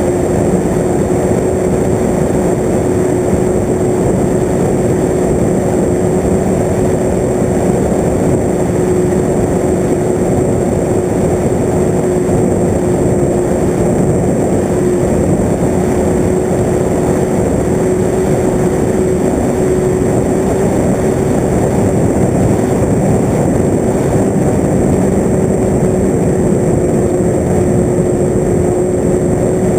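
Electric motor and propeller of a radio-controlled FPV model aircraft running at steady throttle, a constant droning hum over heavy rushing air noise.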